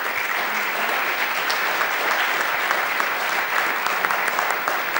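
An audience applauding steadily: many hands clapping at once, a dense spatter of claps.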